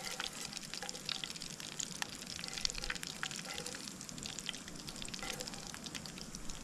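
Hot oil sizzling and crackling in a camping pan with garlic frying in it, as a wooden spoon scoops through the oil.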